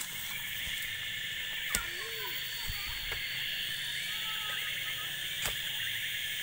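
Steady high-pitched drone of an insect chorus, with a few sharp knocks about two and five and a half seconds in.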